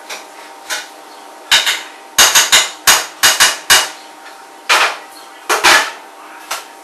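Kitchen utensils knocking and clattering against cookware at the stove: about a dozen sharp strikes in irregular bunches, with quieter gaps between.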